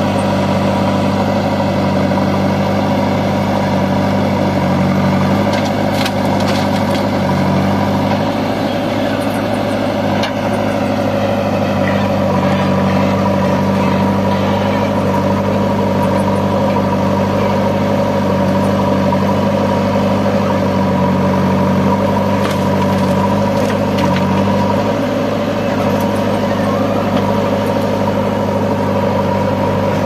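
JCB 3DX backhoe loader's diesel engine running steadily, its pitch shifting a few times as the machine manoeuvres.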